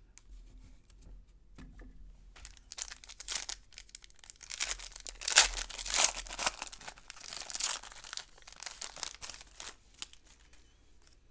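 The foil wrapper of a baseball card pack being torn open and crinkled by hand: irregular crackling that starts about two seconds in and dies away near the end.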